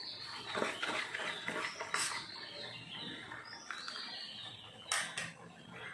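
A metal spoon stirring batter in a stainless-steel bowl, scraping around the sides in squeaky strokes, with a couple of sharper clinks about two and five seconds in.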